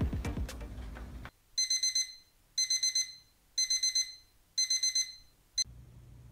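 Digital alarm clock beeping: four bursts of rapid high-pitched beeps, about one burst a second, after a short tail of music fades out.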